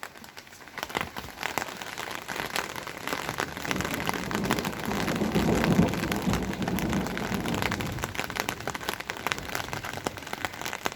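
Steady rain falling, with many close drops ticking. A low rumble of thunder swells up a few seconds in, is loudest about halfway through and dies away before the end.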